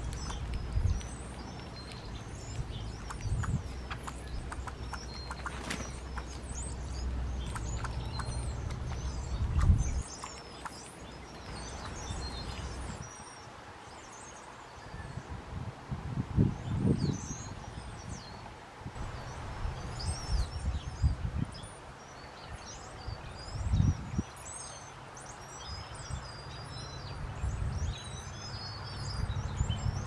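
Small songbirds chirping and twittering in short, scattered calls, over a low background rumble and a few dull thumps.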